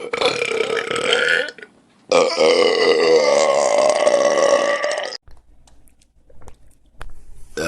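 A person belching loudly: a short belch, then a long drawn-out belch of about three seconds. Another belch starts right at the end.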